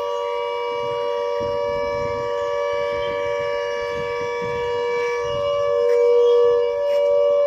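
Emergency alert alarm tone: a steady chord of close-pitched electronic tones held without a break, swelling a little louder about six seconds in.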